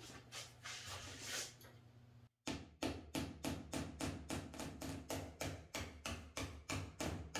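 Hammer tapping a carriage bolt up through a tight pilot hole in a plywood board, in a steady run of light knocks about three to four a second that begins after a brief dropout about two seconds in.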